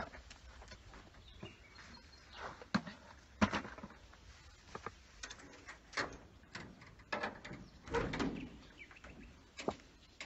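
Scattered knocks and clatters as a metal food bowl is set down and a caravan door is handled and opened, with a few short, high chirping calls between them.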